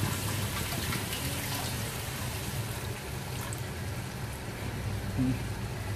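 Water trickling from a small glass into a hot wok of simmering pork ribs in black-bean sauce, over the steady hiss of the pan. The water is added because the pork is still tough.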